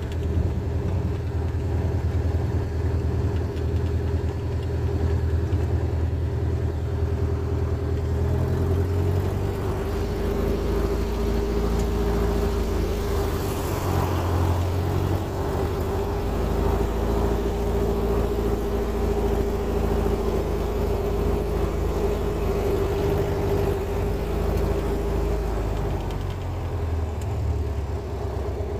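Van's RV-4 light aircraft's piston engine and propeller running steadily at low ground power, heard from inside the cockpit as the plane moves on the ground. The engine note shifts about nine seconds in.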